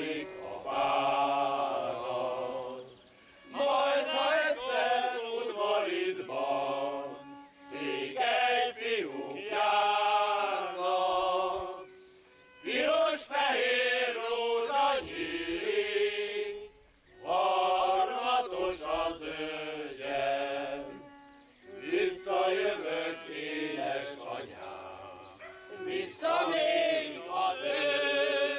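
A small men's choir singing a song with a violin playing along, in phrases a few seconds long with short pauses between them.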